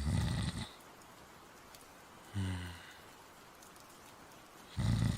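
A person's voice imitating snoring. A breathy snore at the start, a short low voiced breath about two and a half seconds in, and another long snore beginning near the end.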